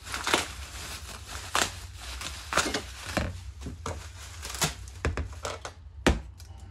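Plastic bubble wrap crinkling and tearing as it is pulled off a metal gun part, in a string of short, scratchy rustles. A single sharp knock comes near the end.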